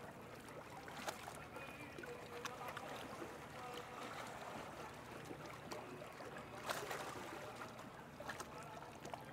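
Calm sea water lapping and sloshing close to the microphone, with a few sharper splashes, the loudest about two-thirds of the way through.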